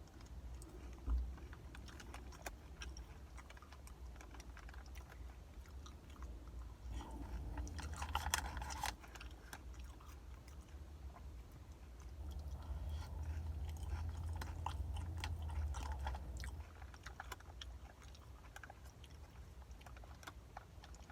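A person chewing crunchy chili cheese Fritos corn chips with melted cheese and jalapeños, with scattered crunches and a denser flurry of crunching about eight seconds in.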